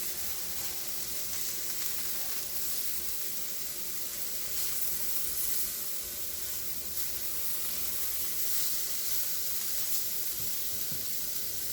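Food frying in a hot oiled pan on the stove, a steady sizzle throughout.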